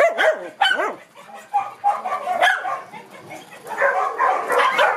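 A group of small dogs barking and yipping, several at once: quick arching yelps in the first second, fewer in the middle, then a dense overlapping chorus from about three and a half seconds in.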